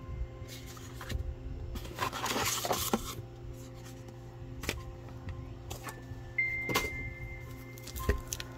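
Unboxing handling sounds: a burst of rustling about two seconds in and a few scattered light taps and knocks as a card is laid on the table and a cotton drawstring bag is picked up, over a steady low hum.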